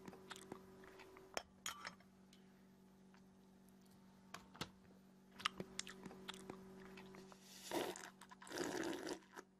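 Faint chewing and crunching: scattered sharp mouth clicks and bites, then two longer, louder crunches near the end.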